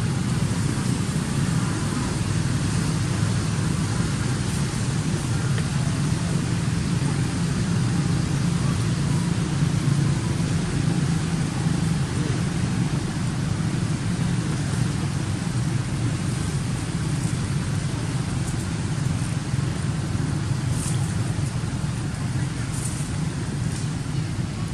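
Steady low rumbling background noise, unchanging throughout, with a few faint short clicks near the end.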